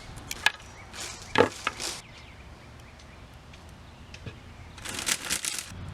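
Sharp knocks and clicks of hand tools on the fuel pump assembly's metal line as it is being cut, the loudest about a second and a half in. A rasping scrape follows near the end.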